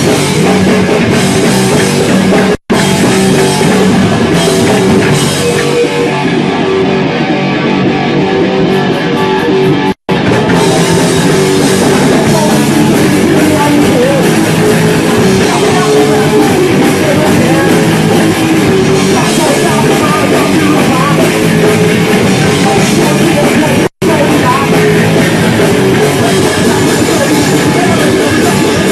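Punk rock band playing live and loud, with drum kit, guitar and a singer on a handheld microphone. The sound cuts out for an instant three times.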